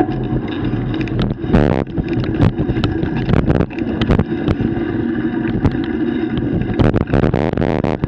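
Bicycle rolling over a bumpy dirt trail, heard from a camera mounted on the rider or bike: wind buffeting the microphone, irregular knocks and rattles as the wheels hit bumps, and a steady low drone underneath.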